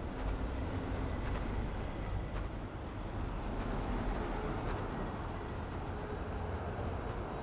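Steady low rumble and hum of airport ambience, with a few faint clicks scattered through it.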